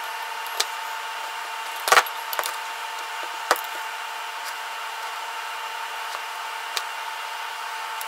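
Scattered small clicks and taps of wire ends and crimp connectors being handled as two ground wires are joined, the loudest about two seconds in, over a steady hum.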